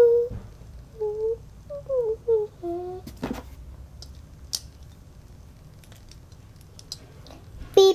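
A child humming a short wavering tune for about three seconds, then scattered light clicks and rustles of plastic dolls and toys being handled, with a brief loud voice sound at the very end.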